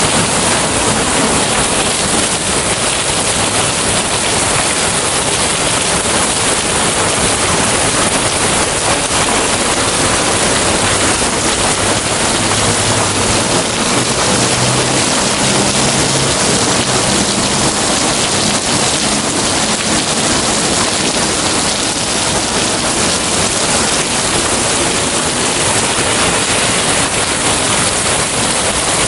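Heavy downpour: dense rain falling steadily and hard on the street, with a faint low hum in the middle.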